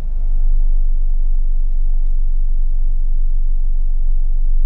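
Steady low rumble of a car engine at idle, heard from inside the cabin while the car creeps backward in reverse gear with no throttle.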